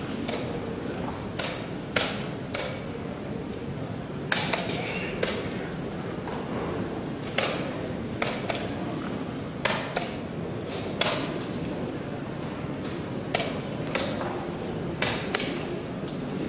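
Wooden chess pieces knocked down on a wooden board and chess clock buttons slapped in fast blitz play: sharp clicks and knocks every second or so, often in quick pairs, over a low murmur of the playing hall.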